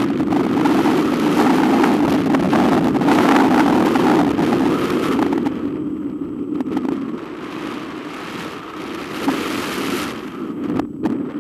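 Wind rushing over the microphone of a camera on a hang glider in flight: a steady buffeting noise that eases and dulls about halfway through.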